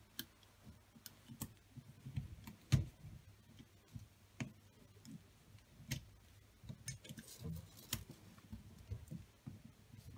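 Small metallic clicks and scrapes of a screwdriver levering a piston-pin snap ring into its groove in the piston, at uneven intervals, the sharpest click about three seconds in.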